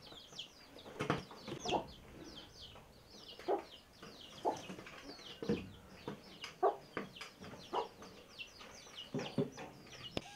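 Chickens clucking now and then, about a dozen short calls, over a steady run of quick, high, falling peeps.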